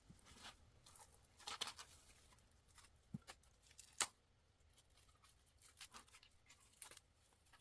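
Faint rustling and handling of album packaging and paper inclusions, with scattered light taps and one sharp click about four seconds in.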